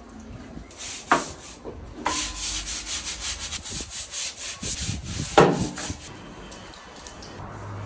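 Hand scrubbing a hard surface: quick, even back-and-forth strokes, several a second, for about four seconds, with a sharp knock about a second in and a louder one near the end of the scrubbing.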